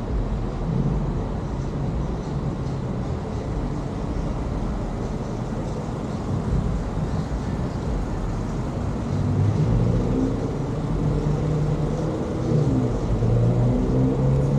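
Steady low rumble of car traffic and running engines on a city street, with indistinct voices talking in the second half.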